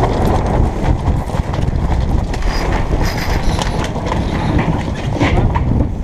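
Strong wind buffeting the microphone over water rushing along the hull of a J80 sailboat going fast in a blow, with many irregular knocks and slaps throughout.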